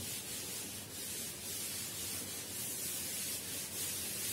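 Chalkboard duster rubbing chalk off a chalkboard, a steady scrubbing sound that comes and goes slightly with the strokes.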